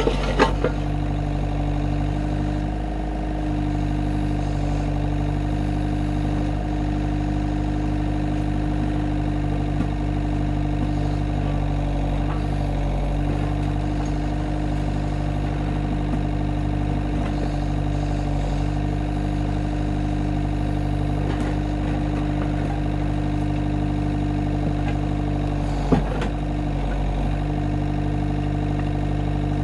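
Avant 650i compact loader's diesel engine running at a steady speed while it powers a backhoe attachment digging soil. A few sharp clicks at the start and one sharp knock near the end.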